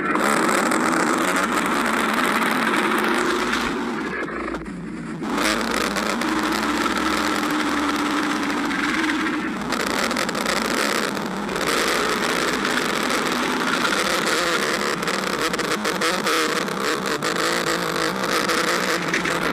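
Stomach growling: a loud, continuous rumble that dips briefly about four seconds in and again about ten seconds in.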